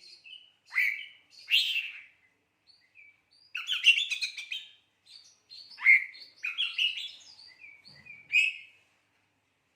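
Oriental magpie-robin (kacer) singing: loud, sharp single notes mixed with quick chattering phrases. These include the lovebird-style burst calls (tembakan lovebird) it has learned.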